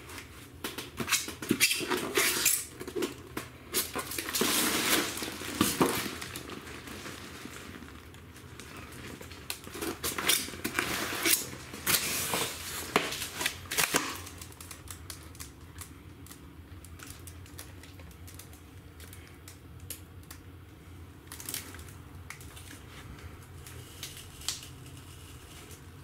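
Polystyrene foam packing being handled and broken apart: scraping, creaking and cracking with many sharp clicks, busy for about the first fourteen seconds, then only a few scattered clicks.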